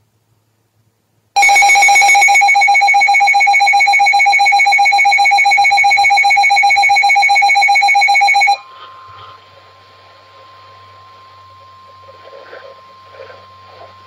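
Weather alert radio sounding its loud, rapidly pulsing electronic alert alarm for about seven seconds. The alarm cuts off suddenly and gives way to a much quieter steady warning tone over hiss, the receiver opening up on a test tornado warning.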